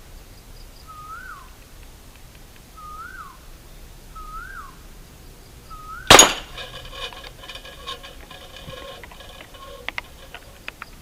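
A bird repeats a short rising-and-falling whistled call about every second and a half. About six seconds in, a homemade PVC toy gun fires one sharp, loud shot, followed by a metallic ringing that dies away over about three seconds, with a few small clicks near the end.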